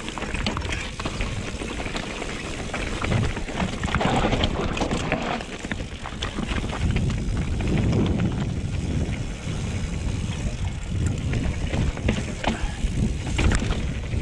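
Full-suspension mountain bike riding down rock, tyres rumbling with frequent sharp knocks and rattles, and wind buffeting a helmet-mounted microphone.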